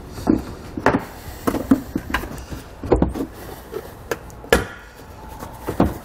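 Sharp plastic clicks and knocks, about seven at irregular intervals, as a 2020 Toyota RAV4's cargo-area side trim panel is pried back and its push fasteners pop loose from the body.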